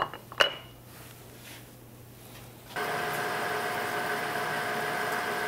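Two sharp metal clinks as the 5C collet block holding the flange is set down in the milling-machine vise, the second with a brief ring. Nearly three seconds in, the Wells Index milling machine's spindle starts a steady running sound with several even tones as a twist drill bores a shallow spanner-pin hole into the flange.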